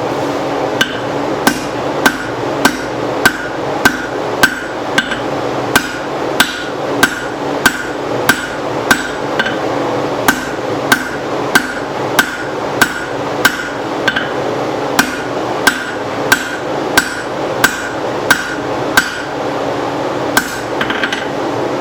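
Hand hammer striking hot leaf-spring steel on an anvil to draw it out: steady blows about one and a half a second, each with a short metallic ring, with a brief pause about halfway. A steady rushing noise runs underneath.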